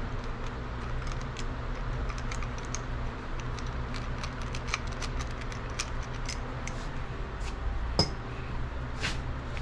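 Light clicks and clinks of metal engine parts and tools being handled while a ringed piston is readied for the block, with a sharper click about eight seconds in, over a steady low hum.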